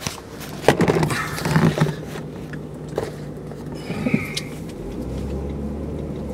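Handheld camera being handled and set in place inside a car: knocks, clicks and rubbing against the lens and mount, loudest in the first two seconds. A steady low hum of the car comes in about five seconds in.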